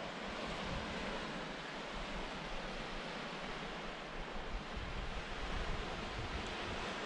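Steady rush of Baltic Sea surf on the beach below, with wind buffeting the microphone in uneven low rumbles from about halfway through.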